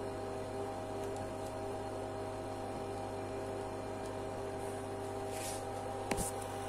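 Steady hum of a running Videojet continuous inkjet printer, holding several tones, with a single sharp click about six seconds in.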